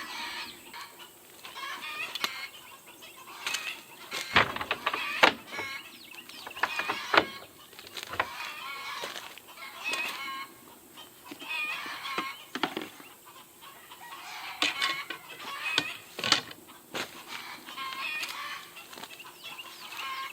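Backyard chickens clucking and calling over and over, with scattered sharp clicks or knocks.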